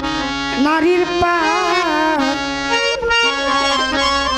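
Bangla baul folk music: a wavering, ornamented melody line over a steady, sustained accompaniment.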